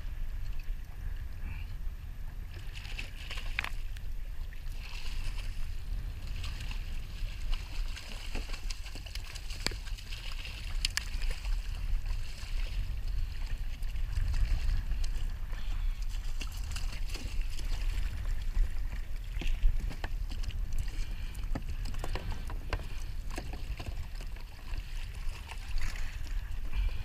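Wind rumbling on the microphone and sea water sloshing against the hull of a jet ski, with scattered clicks and knocks of fishing gear and hull.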